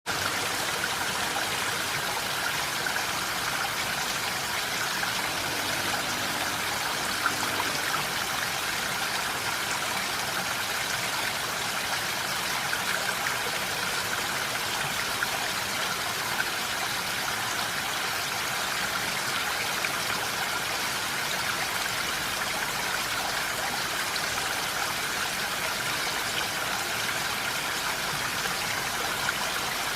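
Steady rain falling: an even, unbroken hiss, with a few slightly louder drops standing out now and then.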